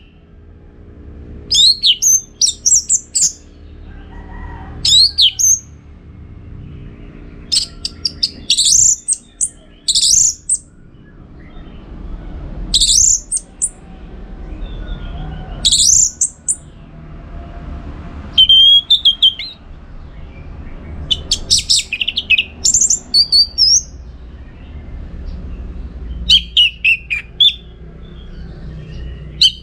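Orange-headed thrush singing: loud, high, sweeping whistled phrases, given in clusters every few seconds with short pauses between. A faint low hum runs underneath.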